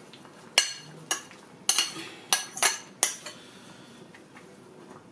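A wooden spoon knocking about six times against a ceramic bowl and the pot as chopped okra is scraped off into boiling soup; the knocks are sharp and come in the first three seconds.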